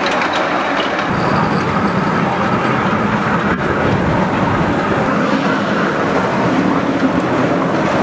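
Miniature park train running along its narrow-gauge track, a steady rumble of the wheels on the rails that grows fuller about a second in, heard from aboard the moving cars.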